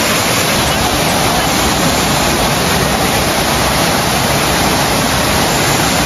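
Kuang Si waterfall's cascades pouring over tiered limestone pools: a loud, steady, even rush of falling water.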